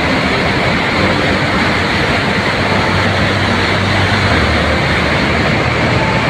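Steady roar of a muddy debris flow, water and rock pouring down a cliff face, with a deeper rumble coming up about three seconds in.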